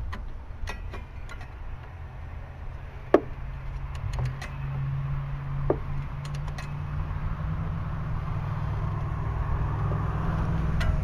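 A few sharp metallic clinks of a wrench while the serpentine belt on a Jeep's 4.0L straight-six is tightened, the loudest about three seconds in and ringing briefly, over a steady low hum that grows louder from about four seconds in.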